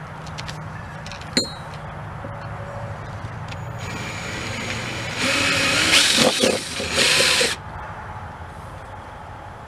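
Cordless drill boring into the underside of an aluminum piston to take weight off it. The drill runs quietly at first, then bites hard for about two seconds a little past halfway, with a brief dip in the middle, before easing off.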